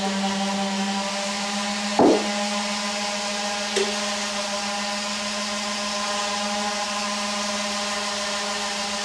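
A steady buzzing hum with a stack of overtones over a bed of hiss, with one sharp knock about two seconds in and a lighter tap near four seconds.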